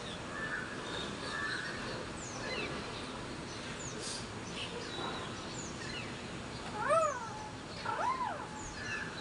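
Pet parrot whistling and chirping: many short, high, downward-sweeping whistles, with two louder rising-and-falling calls about seven and eight seconds in.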